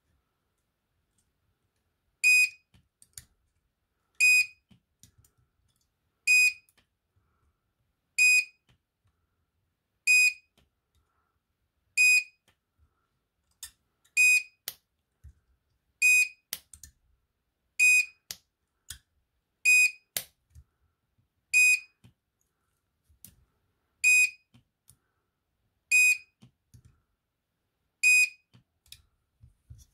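A short, high electronic beep repeating about every two seconds, fourteen times, beginning about two seconds in. Faint clicks of wire being handled come between the beeps.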